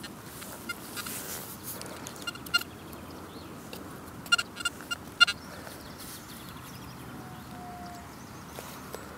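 XP Deus metal detector giving short high-pitched beeps as soil is passed over its coil: a few scattered beeps, then a quick run of about five louder ones around four to five seconds in. The beeps are its response to a tiny non-ferrous target hidden in a handful of soil among iron.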